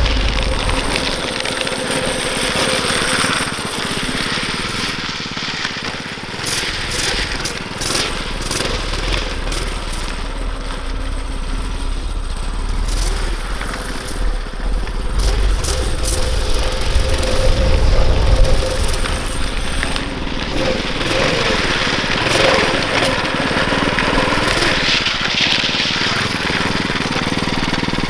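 Tillotson 212 single-cylinder engine on a drift trike, running and revving up and down as the trike is ridden, with a heavy rumble of wind on the microphone.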